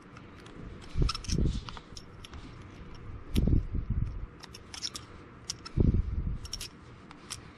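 Small metallic clicks and clinks as a revolver's parts and a small screwdriver are handled. Dull knocks about a second in, around three and a half seconds, and near six seconds are the loudest sounds.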